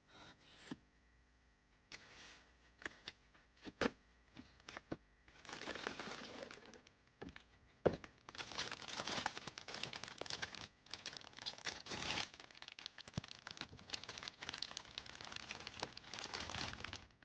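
Blind-box plastic packaging crinkling and tearing as it is opened by hand, in long stretches of dense crackling after a few light taps and clicks over the first few seconds.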